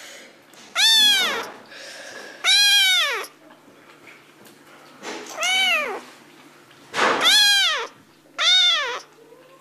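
Munchkin kitten meowing five times, a high-pitched meow every one and a half to two seconds, each one rising and then falling in pitch.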